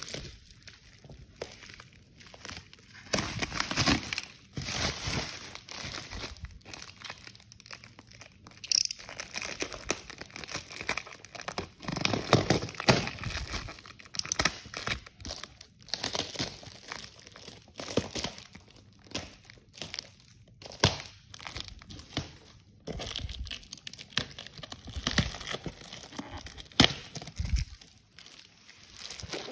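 Parcel packaging being handled and opened by hand: irregular bursts of crinkling and rustling with occasional sharp crackles.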